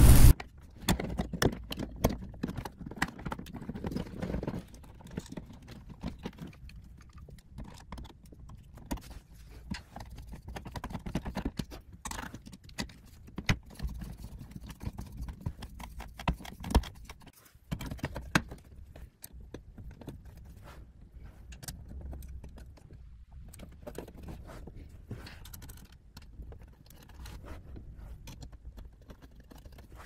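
Irregular clicks, knocks and rattles of a dimmer switch and its wires being pushed into a wall electrical box, then the scrape and clicks of a screwdriver driving the switch's mounting screws.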